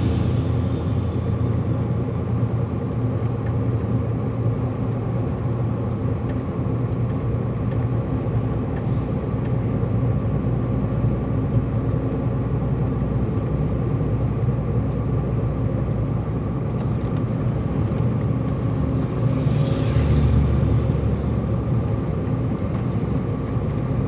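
Heavy truck's diesel engine running steadily, heard from inside the cab while climbing a mountain road, with a deeper rumble swelling for a second or two about twenty seconds in.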